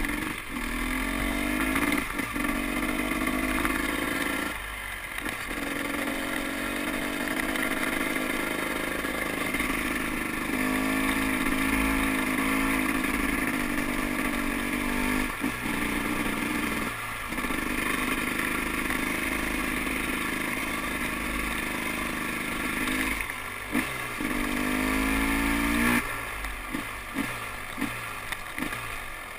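2012 KTM 300 XC-W's single-cylinder two-stroke engine under way, rising in pitch under throttle several times with short breaks between. Near the end the note breaks into uneven pulses as the bike slows.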